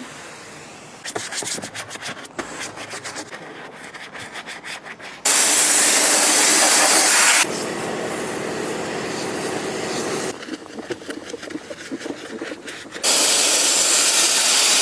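Engine bay being cleaned: rapid scrubbing strokes of a brush alternate with bursts of loud hissing spray. The spray starts about five seconds in, eases off, and comes back near the end after a second stretch of scrubbing.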